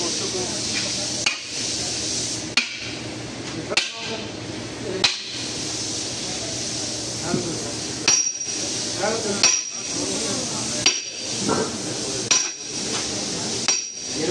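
Hammer blows on a steel sleeve driver, driving a cylinder sleeve down into an engine block bore, about one blow every 1.3 seconds. Four blows come in the first five seconds; after a pause of about three seconds, five more follow, each ringing with a high metallic ping.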